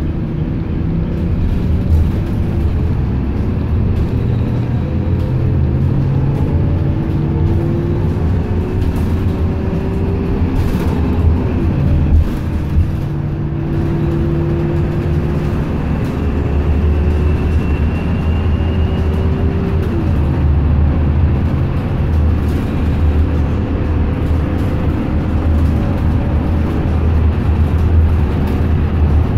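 Inside a moving transit bus: steady engine and drivetrain drone over road noise. A whine climbs slowly in pitch and drops sharply about a third of the way in, again two-thirds in and once more near the end, as the bus gathers speed and the transmission shifts up.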